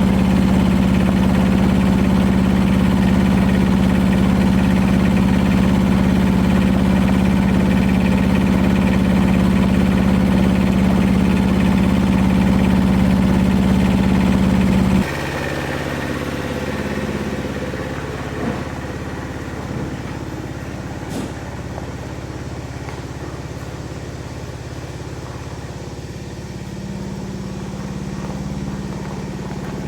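An engine running steadily with a strong low hum. About halfway through it cuts off abruptly to a quieter, steady engine hum with a few faint knocks.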